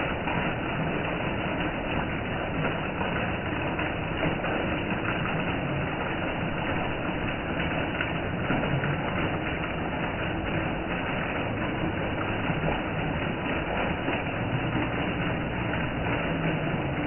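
Heavy rain pouring steadily on trees, plants and paving, an even hiss with no change in strength.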